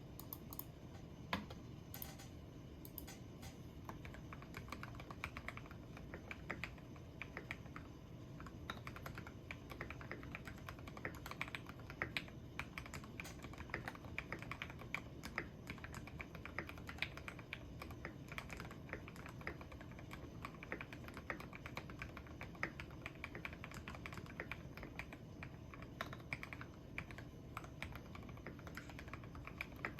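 Typing on a tape-modded Keychron V1 mechanical keyboard with lubed Gateron G Red Pro linear switches and XDA PBT keycaps. A few scattered keystrokes come first, then steady, fast typing from about four seconds in.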